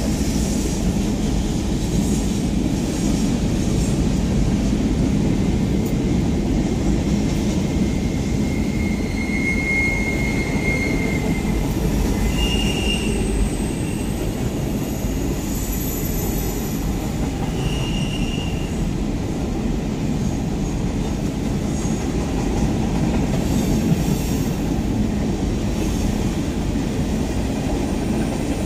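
Freight train cars, covered and open hoppers, rolling past: a steady rumble of steel wheels on rail, with short high-pitched wheel squeals now and then, the longest about ten seconds in.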